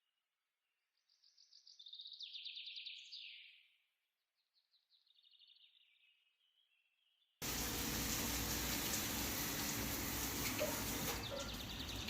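Bird-like chirps and fast trills in short phrases with gaps, then, about seven seconds in, a steady rushing noise starts abruptly and much louder.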